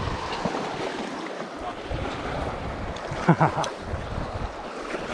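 Sea waves washing against rocks, with wind buffeting the microphone; a brief louder sound a little over three seconds in.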